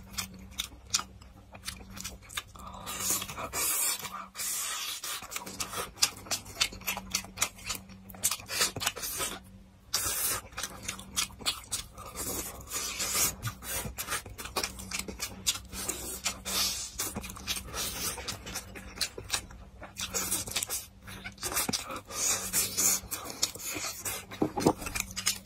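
Close-miked mukbang eating sounds: wet chewing and lip-smacking on stewed pork ribs, glass noodles and rice, a dense run of quick irregular clicks with short noisy slurps and breaths in between.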